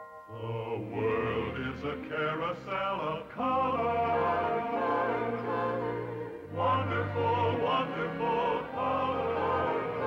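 A choir singing over an orchestra, the voices wavering on long held notes above bass notes that change every second or so.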